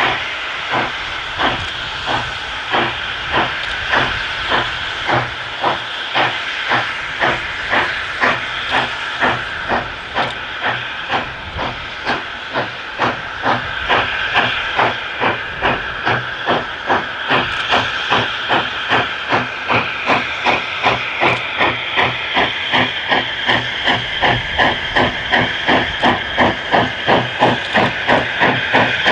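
LNWR 0-6-2T Coal Tank steam locomotive working a passenger train, its exhaust beating in a steady rhythm of about two to three chuffs a second over a constant hiss of steam. The beats grow louder near the end as the engine comes closer.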